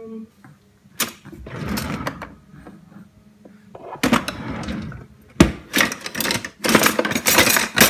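Kitchen drawers pulled open and pushed shut while the metal and plastic utensils inside rattle and clatter as someone rummages through them, with a sharp knock about five seconds in.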